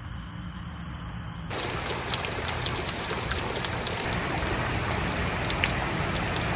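Steady rain falling, with many individual drops ticking on a hard surface. It starts abruptly about a second and a half in, after a quieter low hum.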